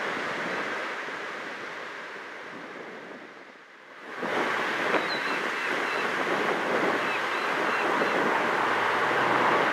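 Strong wind buffeting the microphone. It eases off, then gusts back hard about four seconds in, over the faint sound of a distant diesel-hauled grain train approaching.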